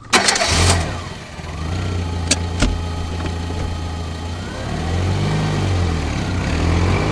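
Car engine started with the ignition key: a short burst of cranking as it catches, then a steady idle. Two sharp clicks come a little over two seconds in, and the engine note rises and falls in the last couple of seconds.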